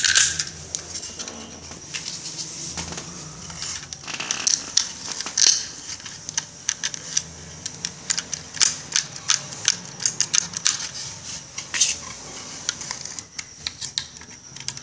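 Hands handling small parts, screws, a plastic regulator plate and a wooden box, while assembling an electrical box: irregular small clicks and taps throughout, over a steady low hum.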